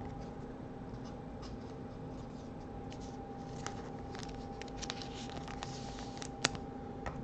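Trading cards being handled: soft rustling and sliding of card stock with scattered light clicks and taps, the sharpest a little after six seconds in, over a steady faint hum.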